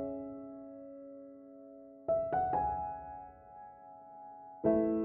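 Background music: slow solo piano, with a held chord, a quick run of three notes about two seconds in, and a new chord struck near the end, each left to ring and fade.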